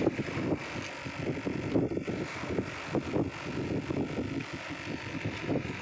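Wind buffeting the microphone on an open boat at sea, a gusty rumble that rises and falls unevenly.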